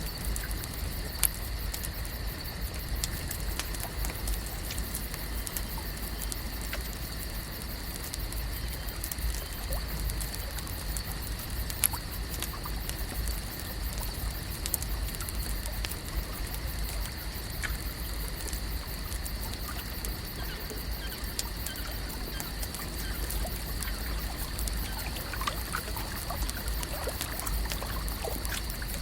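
Lake ambience: water lapping and trickling, with many small scattered clicks and pops. Under it run a steady high-pitched drone and a low rumble.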